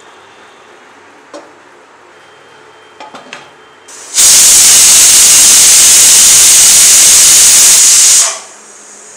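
Aluminium stovetop pressure cooker whistling: about four seconds in, the weight lifts and steam hisses out loudly and steadily for about four seconds, then stops. This is one of the six whistles counted to time the cooking of goat intestines.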